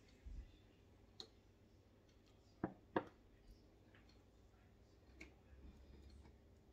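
Near silence with a few scattered light clicks and knocks, the loudest being two sharp knocks about a third of a second apart near the middle.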